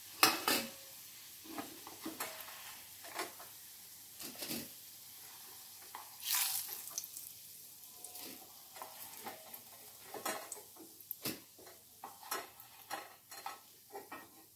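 Rice and vegetable patties sizzling in shallow oil in a non-stick frying pan, at the end of frying over a raised flame. A wooden spatula scrapes and knocks against the pan as the crisp patties are lifted out one by one, loudest near the start and again about six seconds in.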